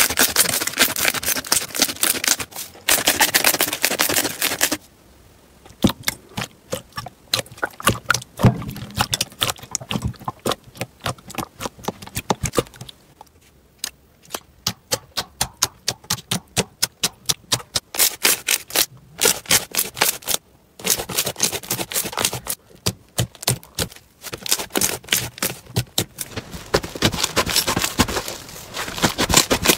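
Slime being squeezed and poked by hand, making quick runs of sharp sticky clicks and pops, with a few short pauses.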